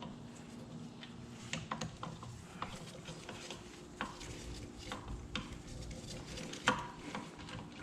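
Hand tools and bolts clinking and tapping on metal engine cases, as scattered sharp clicks with the loudest one near the end, while the right-hand case bolts come out.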